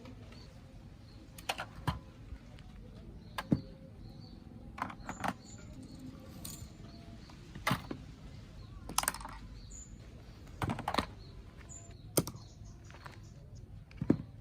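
Hard plastic toy guns being handled: irregular sharp clicks and knocks, about a dozen, with a few louder clacks.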